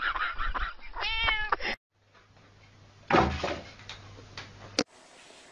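A cat meows in one drawn-out, wavering call. About two seconds later comes a loud, dull thump that fades quickly, followed by a sharp click.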